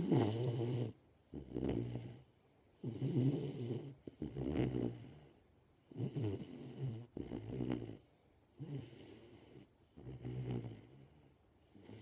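Golden retriever puppy snoring in her sleep: a low, buzzing snore on each breath in and out, about one every second and a half, with short quiet pauses between.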